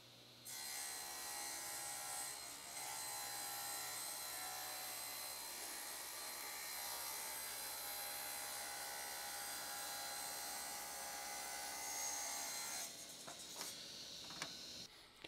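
Table saw ripping a half-inch-thick sheet of Lexan polycarbonate (high-impact "bulletproof" plastic). The blade and motor run steadily through the cut, then get quieter near the end.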